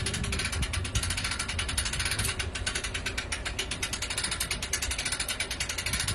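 Hand-cranked boat trailer winch being wound, its ratchet pawl clicking rapidly and evenly, about eight clicks a second.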